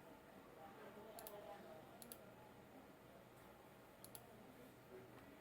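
Computer mouse clicks: three short, sharp clicks spread over a few seconds, some heard as a quick double press-and-release, against faint room tone.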